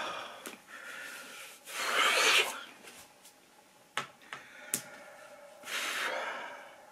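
A man's breathy exhalations: a heavy breath out about two seconds in and another near the end, with a few small clicks between.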